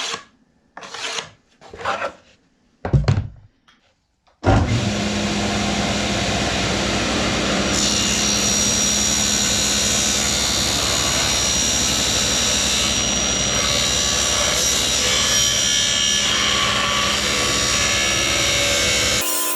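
A few short scrapes, then a power saw cutting a piece of wood along a scribed line. The saw starts about four seconds in, runs steadily and stops just before the end.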